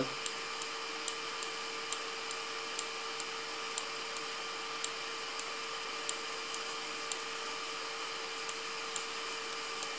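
A computer mouse clicking lightly, about two to three clicks a second and quickening after about six seconds, over a steady microphone hiss and hum.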